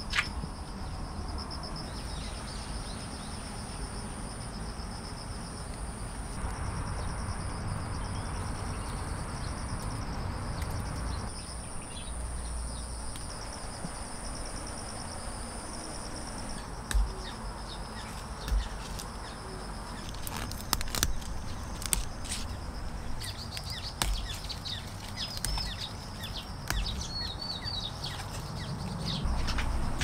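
Outdoor summer ambience: a steady high-pitched insect drone with a second, lower whine beneath it. Birds chirp in short phrases in the second half, and a few light knocks and clicks come through over a low rumble.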